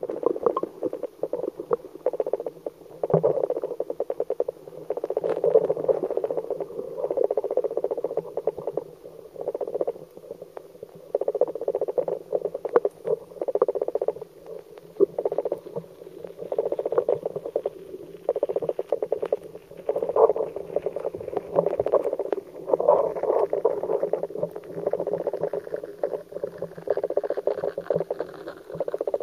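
River current heard underwater through a submerged camera: a dense crackling and bubbling patter that swells and fades every second or two.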